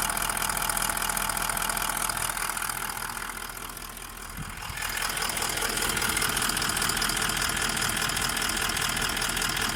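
Rebuilt Toyota 1VD-FTV V8 turbodiesel idling fully warmed up, with an even diesel clatter and no foreign knock. It briefly grows quieter about four seconds in, then comes back.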